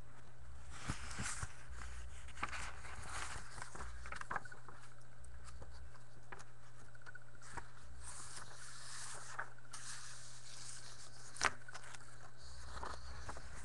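Handling noise as the camera is moved around: scattered rustling, scraping and soft clicks, with one sharp click a little past eleven seconds in, over a steady low hum.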